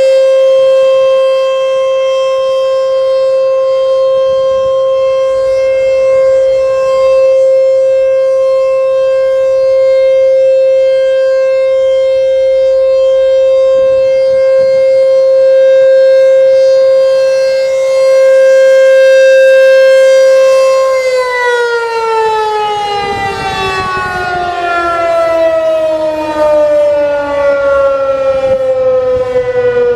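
American Signal T-128 outdoor warning siren sounding a loud steady tone during a test, its level swelling and easing slowly; about twenty seconds in it shuts off and winds down, the pitch falling steadily.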